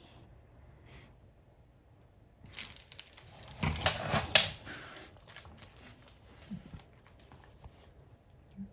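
Labrador chewing and mouthing a toy duck: a rustling, crinkling stretch in the middle, loudest with one sharp crackle, between quieter mouthing noises.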